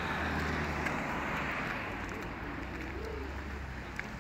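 Outdoor street noise from passing car traffic, a steady hiss and rumble. A short wavering call rises and falls about three seconds in.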